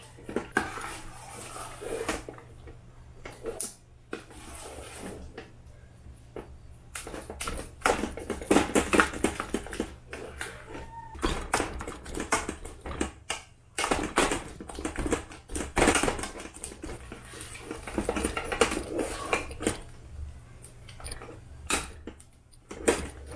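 Steel ladle scraping and clicking irregularly against a steel saucepan as a thick dough of rice flour cooked in milk is stirred over the flame, with a low steady hum underneath.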